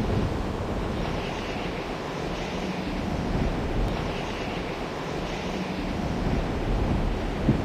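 Steady rushing of a mountain river's flowing water, with a short thump near the end.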